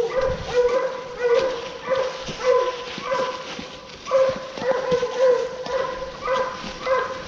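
Coon hounds barking steadily at a tree, one short bark about every half second, the chop of dogs holding a treed raccoon.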